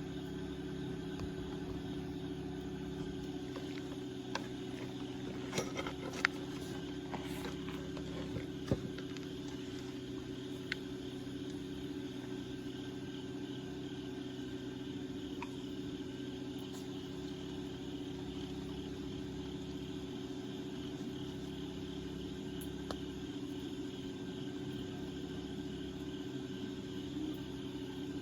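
Scattered sharp crackles and pops from a burning wood fire, clustered a few seconds in and sparse after that. Under them runs a steady low hum, with a pulsing chirr of crickets in the background.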